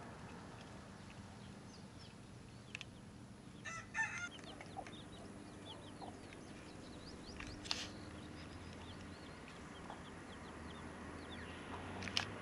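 Baby chicks peeping in many short, high chirps, with a hen clucking briefly about four seconds in. A couple of sharp clicks stand out.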